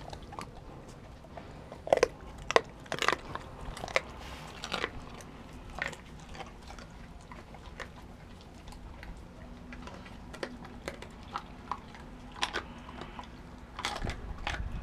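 Doberman biting and chewing a raw whole chicken, the bones cracking in sharp, irregular crunches that come thickest about two to five seconds in, then more sparsely.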